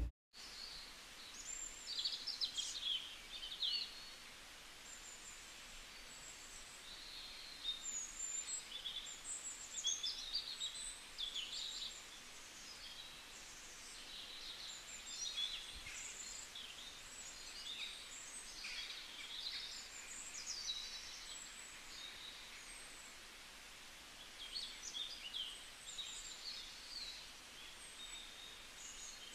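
Faint birdsong: several small birds chirping and twittering in quick high calls that come in clusters, over a steady low hiss.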